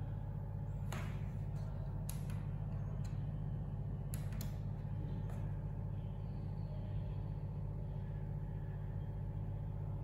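Steady low hum, with about six short clicks in the first half.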